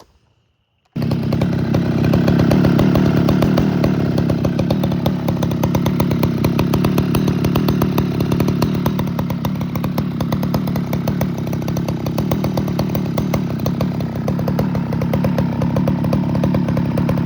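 Poulan 4900 CounterVibe chainsaw's 77cc two-stroke engine running steadily. It cuts in abruptly about a second in.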